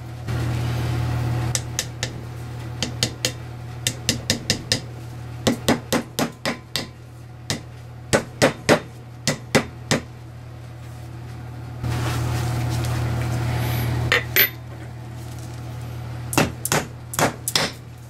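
Hammer tapping a seal driver to drive a new oil seal into a disc-brake hub: sharp metal-on-metal taps in quick runs of several, some light and some harder. A steady low hum comes up twice in the background.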